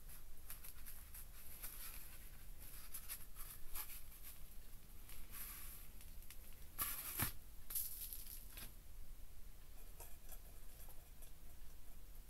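Sawtail surgeonfish skin being worked away from the flesh by hand for taxidermy: faint irregular tearing and scraping, with one louder scrape about seven seconds in.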